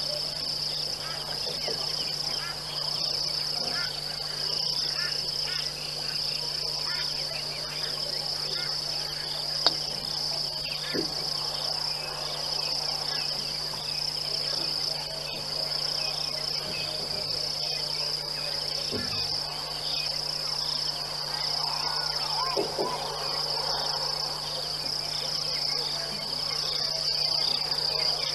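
Chorus of insects, likely crickets, chirping in a steady high-pitched trill, with a steady low hum underneath and a single sharp click about ten seconds in.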